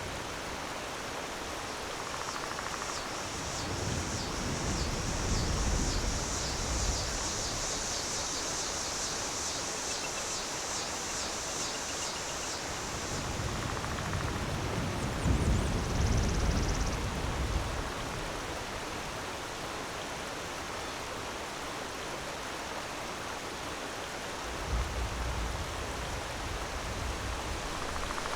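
Waterfall: the steady rush of falling water. Deep low rumbles swell up three times, and a high, rapidly pulsing chirr runs for several seconds in the first half.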